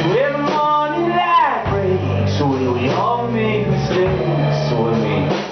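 Live band playing: a man singing over guitar and sustained bass notes.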